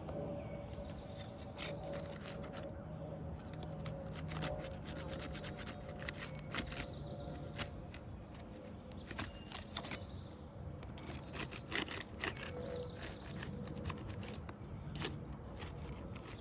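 Asphalt shingle seal strips cracking apart as a flat pry tool is worked under the shingles: many irregular sharp clicks and ticks, the seals coming up easily. A faint steady hum sits underneath.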